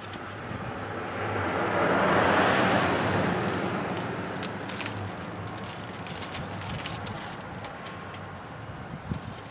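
A passing vehicle: a broad noise swells to a peak about two seconds in and then slowly fades, with light clicks scattered through it.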